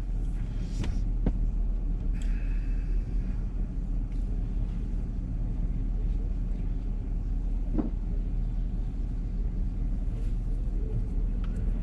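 Pickup truck's engine idling steadily, heard from inside the cab as a low rumble, with a few faint knocks.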